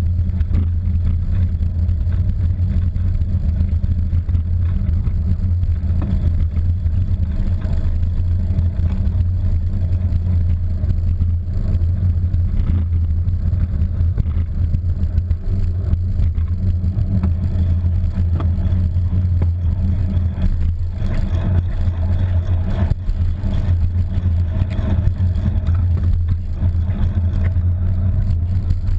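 Steady low rumble of wind buffeting and road vibration picked up by a handlebar-mounted GoPro in its housing while a bicycle is ridden along a street, with a few light knocks.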